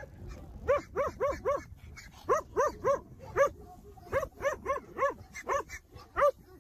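Dog barking, short sharp barks in quick runs of three or four, about fifteen in all.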